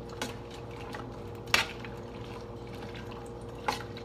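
Metal spoon stirring lima beans and corn in a stainless steel saucepan, with three sharp clinks of the spoon against the pot, the loudest about a second and a half in. A steady low hum runs underneath.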